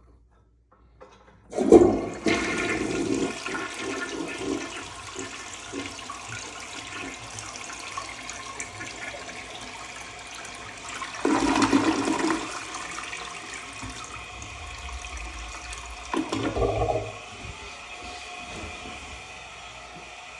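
A 1964 Kohler Cayuga wall-hung toilet flushed about a second and a half in: a sudden rush of water that carries on as the bowl empties and the tank refills, with two louder surges later on.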